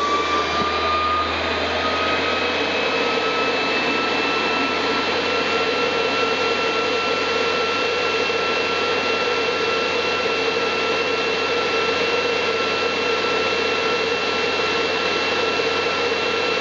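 NetGain WarP9 series-wound brushed DC electric motor spinning unloaded at about 5,400 RPM, held at its set idle speed by the controller. It is a steady high whine over a hiss, its pitch rising slightly over the first two seconds as it finishes spinning up, then holding level.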